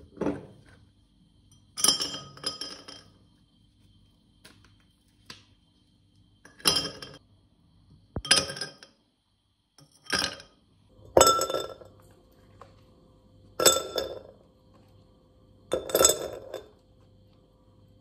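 Frozen fruit ice sticks being put into tall drinking glasses, clinking against the glass: a series of separate sharp clinks, one every second or few seconds, each ringing briefly.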